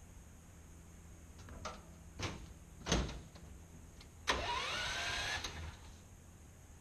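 A few knocks, then a small motor whines up in pitch for just over a second and stops.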